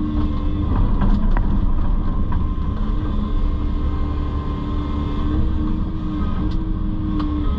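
Excavator's diesel engine running steadily, with a steady humming tone and a few light clicks.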